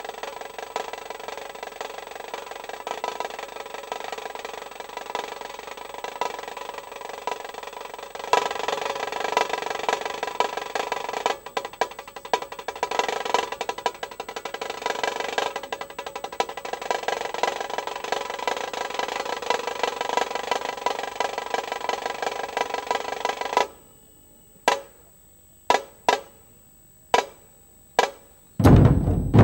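Tasha, a shallow kettle drum struck with two thin sticks, played in fast continuous rolls that grow louder about eight seconds in. Near the end the rolls stop and give way to single sharp strokes about one a second, then deep low beats come in just before the end.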